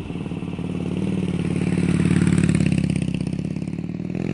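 Motorcycle engine running with a rapid, pulsing beat that swells in the middle, then begins to rise in pitch near the end as it is revved.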